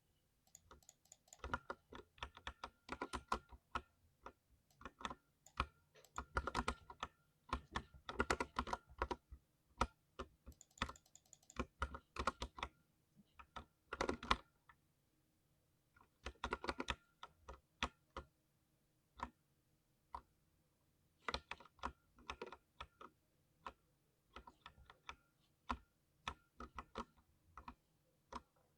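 Typing on a thocky mechanical keyboard: irregular runs of keystrokes with short pauses, and a lull of a few seconds past the middle.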